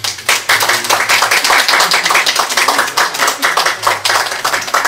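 A small audience applauding: quick, dense hand claps that hold steady through the moment.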